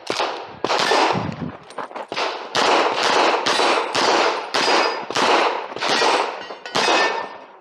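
A rapid string of pistol shots, about two to three a second, fired in an IPSC course of fire, with steel targets ringing faintly after some hits.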